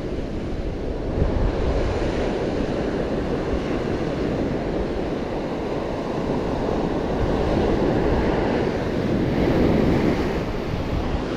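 Ocean surf washing onto the beach, a steady rushing that swells as waves break, most strongly near the end, with wind buffeting the microphone.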